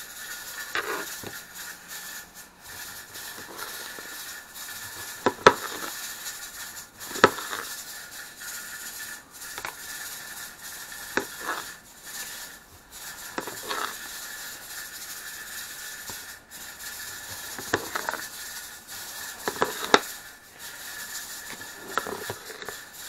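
A kitchen knife knocking on a cutting board every few seconds as tomatoes are sliced, over the steady hiss of a pressure canner.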